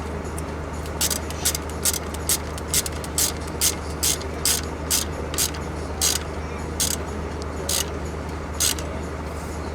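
Ratchet wrench worked in quick strokes, tightening a bolt: a short rasping burst of clicks about twice a second, the strokes spacing out near the end. A steady low hum runs underneath.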